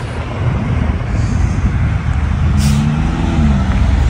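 Road traffic: a steady low rumble, with one motor vehicle's engine passing, its pitch rising and then falling a little after two seconds in.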